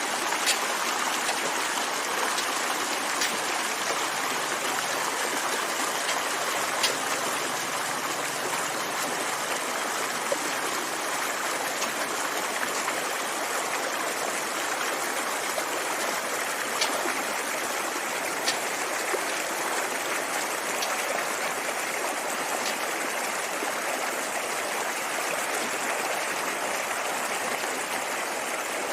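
Steady rushing noise of flowing water, with a few faint ticks scattered through it.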